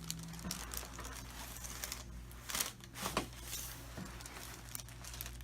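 Soft rustling and crinkling as a person shifts on a chiropractic treatment table, with three short sharp clicks between about two and three seconds in.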